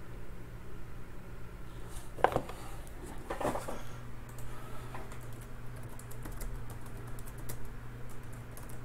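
Typing on a computer keyboard: scattered light key clicks, a couple of them louder, over a faint steady hum.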